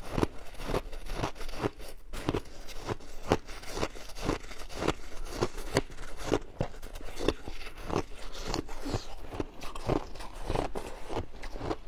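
Mouthfuls of shaved ice being bitten and chewed, a steady run of close crisp crunches about two to three a second.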